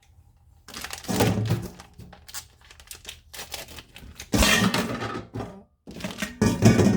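Three bursts of clattering knocks and crunching, about a second in, around four and a half seconds in, and near the end, with scattered lighter clicks between.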